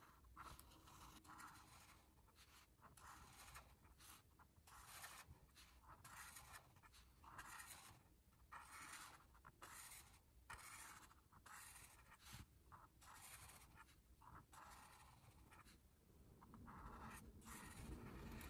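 Faint swishing strokes of an Ohuhu brush-tip alcohol marker laying down colour on paper, short separate strokes about one to two a second.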